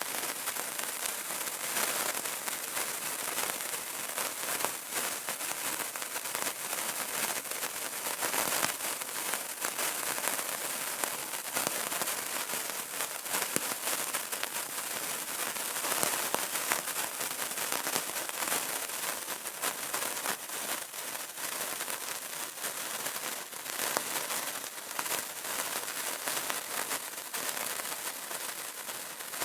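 Burning candle crackling: a dense, continuous run of small pops and ticks over a soft hiss.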